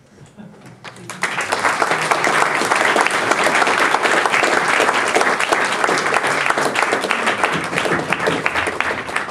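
Audience applauding at the end of a scene. The applause starts about a second in and then goes on steadily.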